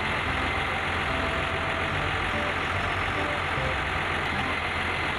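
Large crane truck's engine running steadily at idle, a low even rumble that does not change.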